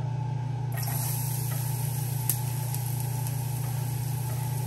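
Chopped garlic starting to sizzle in hot olive oil about a second in, a fine crackling hiss with small pops, over a steady low hum.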